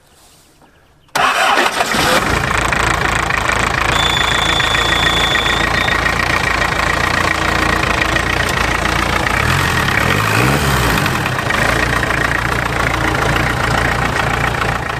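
The ARO 243's turbo-diesel engine starts about a second in, then runs steadily and loudly.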